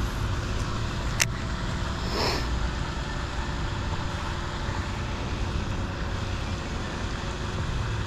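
Steady low outdoor rumble, with a baitcasting rod cast: a sharp click about a second in, then a short swish about two seconds in.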